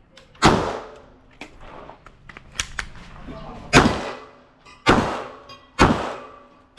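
9mm Glock 19 Gen 5 pistol firing: one shot about half a second in, then after a three-second pause three more shots about a second apart, each a sharp crack with a short echoing tail. A few fainter, short cracks fall in the pause.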